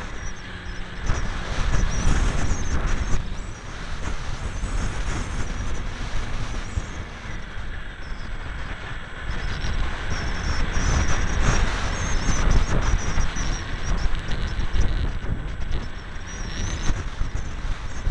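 Wind buffeting the microphone of a camera riding on a ParkZone T-28 Trojan foam RC plane, a heavy, uneven rumble that swells and fades. Over it runs the thin high whine of the plane's electric motor and propeller, wavering up and down in pitch.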